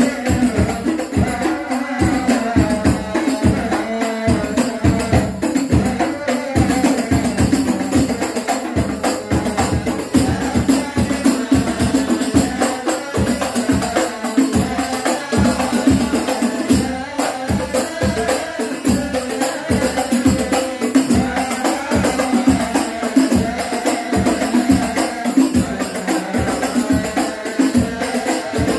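A man sings an Islamic devotional song over a microphone and PA speaker, accompanied by several rebana frame drums beating a fast, steady rhythm.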